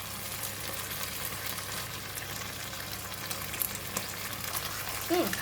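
Prawns and vegetables in red curry paste sizzling steadily in a hot pan, with a few light clicks.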